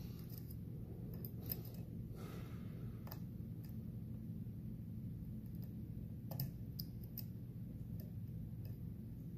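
Irregular small metallic clicks and scrapes of a dimple pick working the serrated pin stack of a Mul-T-Lock Interactive+ dimple lock held under tension, with a short scrape about two seconds in. A steady low hum runs underneath.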